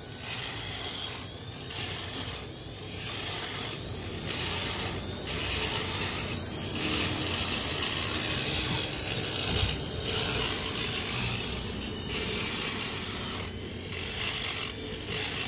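Scraping and rasping of hand work on metal engine parts during porting, in repeated strokes with short pauses between them.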